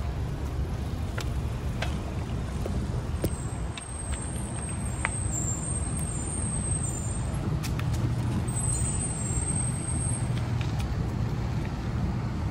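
Bicycle ride along a cracked asphalt path: a steady low rumble of tyre and wind noise, with a few light clicks and rattles. A faint high thin whine comes in twice.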